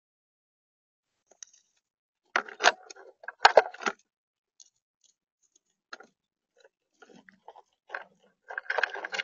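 Gray squirrel feeding in a plastic tub of acorns, crunching and clattering the nuts in quick bursts of clicks. The bursts come about two to four seconds in and again near the end, with scattered single clicks between.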